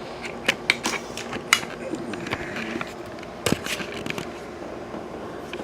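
Handling noise of a camera being taken off its tripod: a string of sharp clicks and knocks, with a louder cluster about three and a half seconds in.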